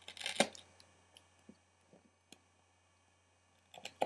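A kitchen knife cutting through a thin, overcooked and hardened sheet of candy-kit potato dough in a plastic tray: a short burst of sharp scraping clicks in the first half second, then a few faint taps.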